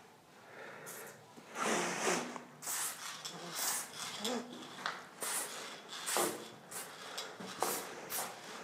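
Aerosol spray paint can spraying in short hissing bursts of uneven length, roughly one a second, as a graffiti piece is painted.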